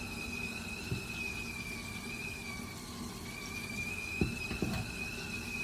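Stovetop kettle whistling with a steady, high tone as the water boils. The whistle drops out briefly midway, then comes back. Two light knocks sound near the end.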